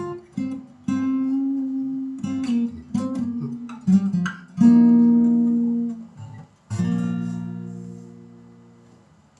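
Acoustic guitar strumming the closing chords of a reggae song; a last chord near the end is left to ring and fades away.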